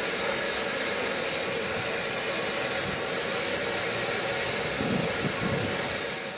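Beyer Peacock steam locomotive No. 120 standing with steam escaping in a steady hiss.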